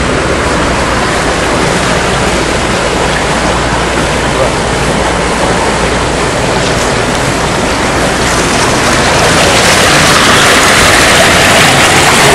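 Clarified water rushing through an open concrete channel out of the settling basins, a steady loud noise that grows louder and brighter about nine seconds in.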